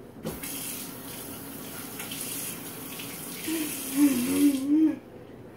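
Kitchen tap running: a steady hiss of water that starts just after the beginning and stops suddenly near the end. A louder wavering hum joins it for its last second and a half.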